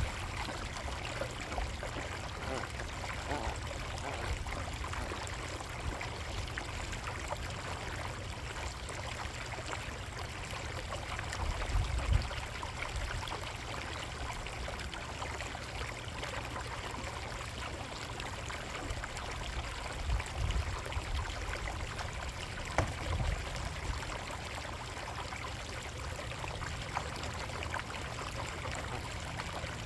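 Steady trickling and splashing of water in a koi pond, with a low thump about twelve seconds in and a few more later on.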